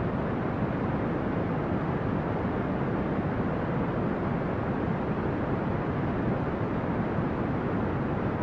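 Steady brown noise: an even, unchanging deep rushing hiss, with most of its energy low down and little treble.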